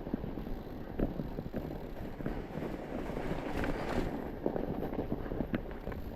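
Fat bike with chains on its tyres riding over snow: a continuous rolling crunch with many scattered clicks, and wind buffeting the microphone.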